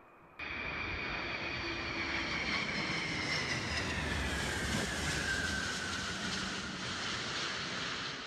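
Antonov An-225 Mriya flying low overhead, its six turbofan engines giving a steady rush with a high whine that falls in pitch as it passes and draws away.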